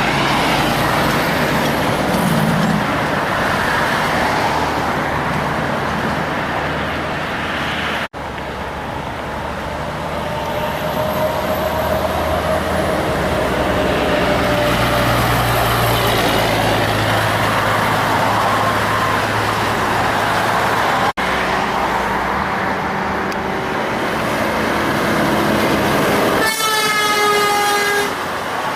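Heavy trucks passing at road speed, engines running under a steady rush of traffic noise. Near the end a truck horn sounds once, a single steady blast of about a second and a half.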